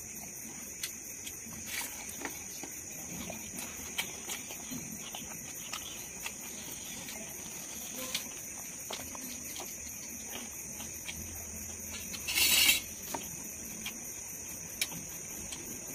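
Close-up eating sounds of a person eating rice by hand from a steel plate: soft chewing and mouth clicks, with a louder half-second rush of noise about twelve seconds in. A steady insect chorus hums behind.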